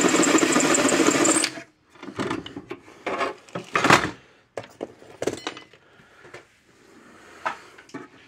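Power drill running steadily, then cutting off abruptly about one and a half seconds in. After it come scattered knocks and clatter as the metal fence-charger box and its lid are handled.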